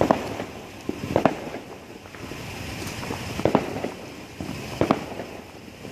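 Consumer fireworks going off: four sharp bangs at irregular intervals of one to two seconds.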